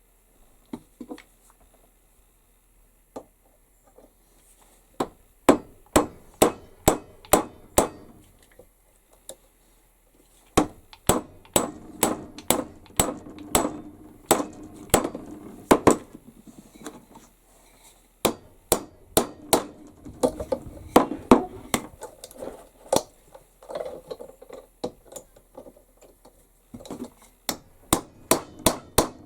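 Hammer peening copper rivets over their burrs on a leather carrier: several runs of sharp blows, a few a second, with short pauses between them.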